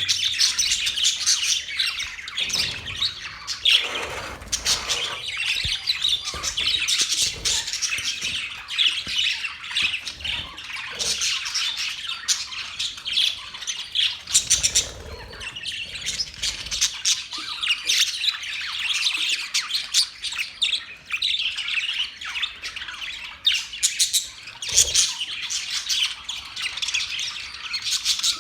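Parrots chirping and squawking without a break, a dense stream of short, high calls.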